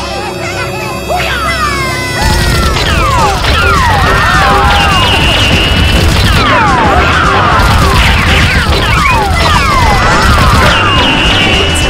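Edited-in gunfire sound effects: a dense, continuous rattle of shots laced with many short falling whistles, under background music. The volley breaks in about two seconds in.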